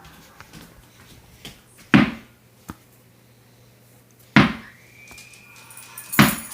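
A tennis ball bounced hard on the floor three times, each a sharp thud with a short low ring-off, about two seconds apart. A thin, steady high whine is held between the second and third bounce.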